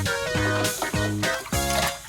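Background music with a bouncy beat: held chords over a bass note struck about twice a second.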